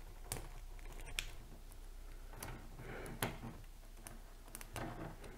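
Faint handling noise of PC power cables being sorted, with a few sharp plastic clicks as a 24-pin ATX cable extension is pushed onto the power supply's 24-pin connector.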